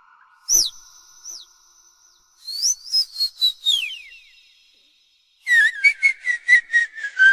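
Puppies whimpering and yelping in high-pitched whines that fall in pitch. There are two single whines near the start, a quick run of yelps around three seconds in, and a faster string of yelps near the end, each leaving a short echoing ring.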